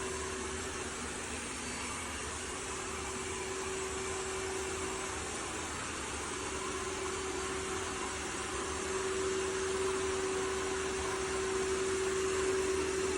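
Robot vacuum running: a steady motor and fan hum with a held tone through it, getting a little louder about nine seconds in.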